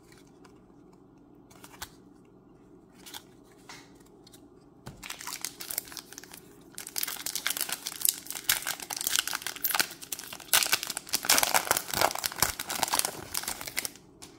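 Plastic Magic: The Gathering play booster wrapper being crinkled and torn open. A few faint clicks come first, then a dense run of crackling starts about five seconds in and is loudest in the second half.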